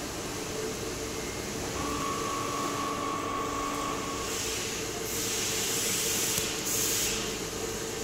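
Steady mechanical hum over a constant background noise, with a hiss that starts about four seconds in and stops about seven seconds in, broken briefly just before the end.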